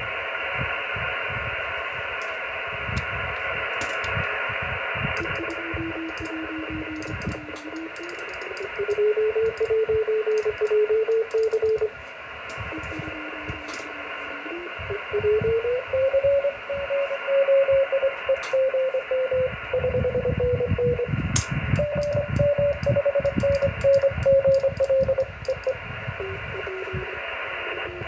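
Amateur radio transceiver receiving Morse code (CW) through a satellite: a single keyed tone over steady receiver hiss, its pitch stepping and gliding up and down as the receiver is retuned to follow the satellite's Doppler shift. Sharp clicks come and go throughout.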